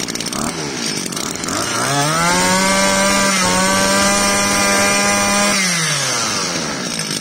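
Shindaiwa S20-type 22cc two-stroke brush cutter engine idling, then revved to high speed about one and a half seconds in and held there for about four seconds with a brief dip, before dropping back to idle near the end.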